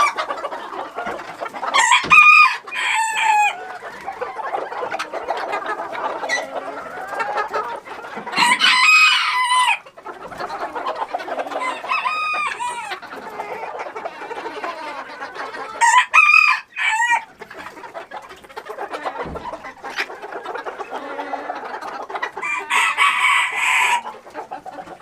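A flock of chickens: roosters crowing about five times over steady clucking and chatter from the hens.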